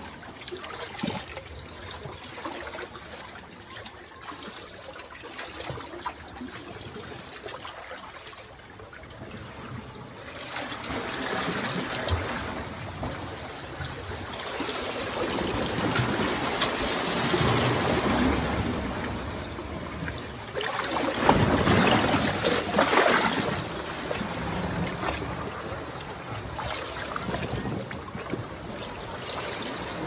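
Seawater sloshing and surging against the rock of a sea cave, a steady rush that swells louder through the middle and peaks a little past two-thirds of the way through.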